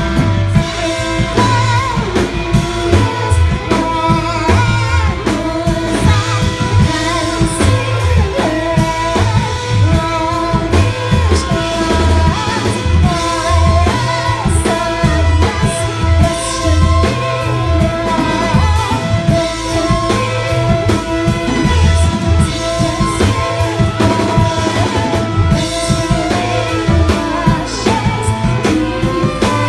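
Live rock band playing: drum kit, electric guitar and bass, with a voice singing.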